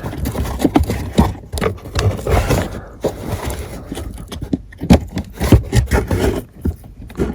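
Plastic cabin-filter access cover behind a car's glove box being worked loose by hand: scraping with a string of irregular clicks and knocks as its clip tabs are pushed free.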